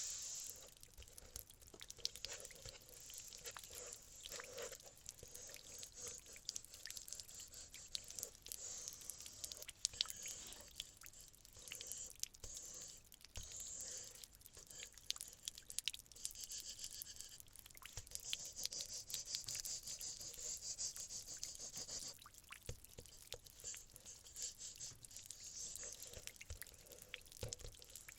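Large paintbrush working acrylic paint onto a canvas: a scratchy swishing, stroke after stroke, with many small taps and scrapes.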